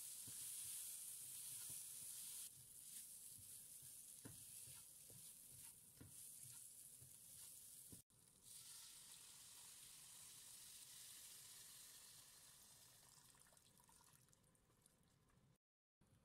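Faint sizzling of food frying in an oil pan, with a few light knocks in the middle; the sizzle dies down near the end.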